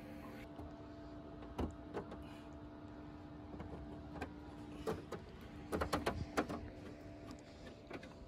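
Scattered clicks and knocks of a fiberglass trunk spoiler being handled and fitted onto a car's trunk lid, with a quick cluster of them about six seconds in, over a steady hum.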